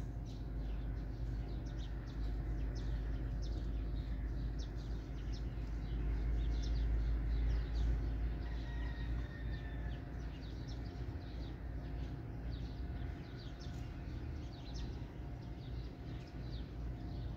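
Whiteboard marker squeaking in many short strokes as words are written, over a steady low rumble and faint hum.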